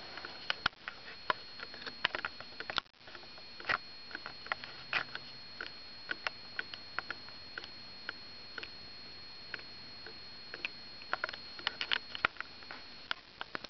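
Irregular light clicks and taps, clustered in a few bunches, over a steady hiss with a faint high whine, with a brief dip in the hiss about three seconds in.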